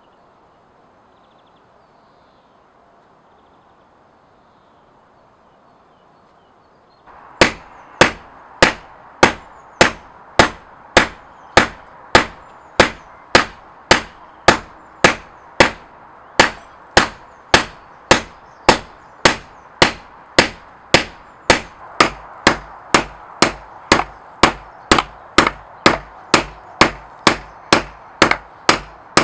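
Faint background hush, then about seven seconds in a steady run of hammer blows on steel over an anvil begins, about two strikes a second, each one sharp with a short ring after it: forging the tool steel.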